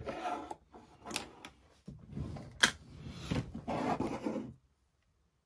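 Painting supplies being handled and slid about on a work table: bouts of rubbing and scraping, with a sharp click a little over a second in and a louder one about two and a half seconds in.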